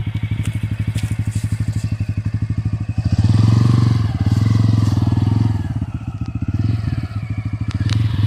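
Bajaj Pulsar N160's single-cylinder engine ticking over with even, steady firing pulses, then revved hard about three seconds in and again near the end as the bike strains under load to climb out of a deep dirt rut.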